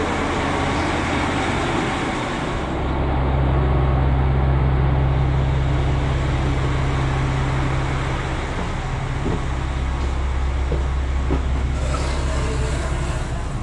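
JR Hokkaido KiHa 261 series diesel multiple unit standing at the platform with its engines idling: a steady low drone that swells louder about three seconds in and eases back after about eight seconds. Near the end a hiss is added as the touch-operated door slides open.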